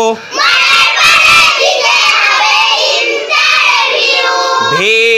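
A class of young children chanting a line of a Bengali rhyme together in unison, loud and ragged with many voices at once. Near the end a single voice starts up alone.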